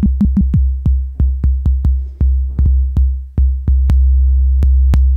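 Synthesized electronic kick drum from the Reaktor Blocks Bento Box Kick Basic module, hitting in a quick repeating pattern, each hit a sharp click over a deep low thump. Partway through, the low tail grows longer until the hits run together into a steady low boom in the last second and a half.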